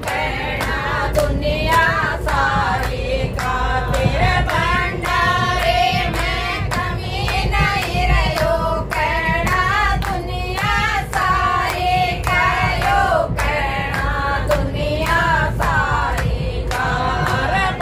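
A group of women and children singing a devotional bhajan together, clapping in time, over a low steady rumble.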